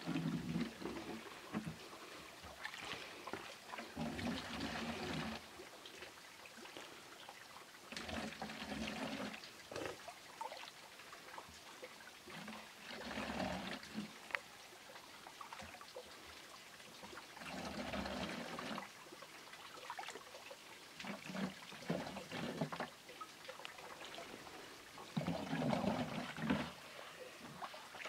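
Water scooped from a shallow spring pool with a steel bowl and poured into a plastic jerrycan, about seven pours, each lasting a second or so, roughly every four seconds.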